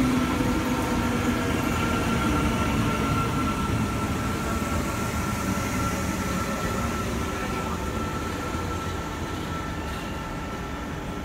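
Double NS SGM Sprinter electric multiple unit rolling slowly into the station. The train noise carries a steady high whine and gradually fades as it passes.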